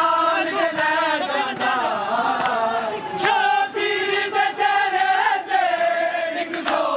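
Men chanting a Punjabi Shia noha, a Muharram lament, together in long wavering held notes. Sharp slaps of matam, hands striking chests, cut in now and then.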